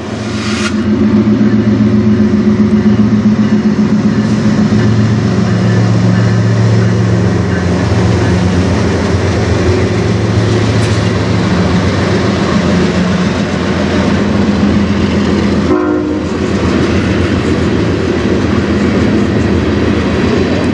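Freight train passing close: a steady low diesel locomotive drone over the rumble and clacking of wheels on the rails. The drone eases briefly about three-quarters of the way through, then the rolling noise carries on.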